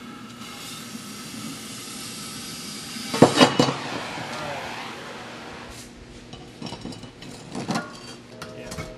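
Cutting torch hissing steadily as it cuts through the steel wall of a refrigerant cylinder, with a burst of sharp metal clanks about three seconds in and more clanks of metal on metal near the end.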